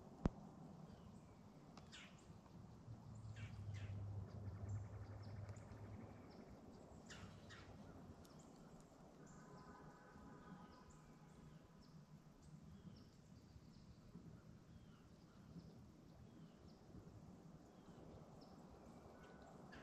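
Faint bird chirps and calls in quiet woods. A sharp click comes just after the start, a low hum swells for a few seconds early on, and a short pitched call comes about halfway through.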